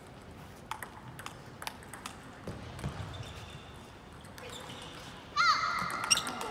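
Table tennis rally: the ball clicking off bats and table, a hit every third of a second or so for a few seconds. About five seconds in there is a sudden loud, high-pitched sound.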